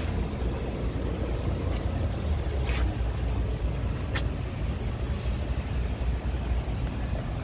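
Scania R truck's diesel engine idling with a steady low rumble, and two light clicks near the middle.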